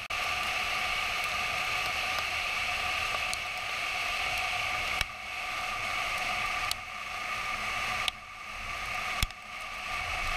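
Steady rushing running noise inside a storm-chase vehicle, with a constant high whine over it. It is broken by sharp clicks and short dips about five, seven, eight and nine seconds in.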